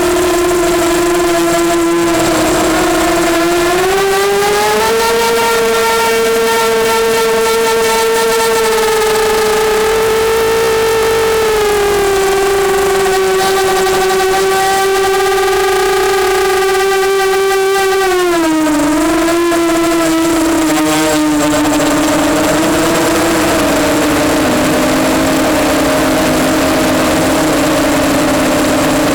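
Brushless motors and propellers of an EMax Nighthawk 250 quadcopter whining in flight. The pitch rises about four seconds in and holds, steps down near the middle, dips sharply later, then settles lower with more rushing noise near the end as the throttle changes.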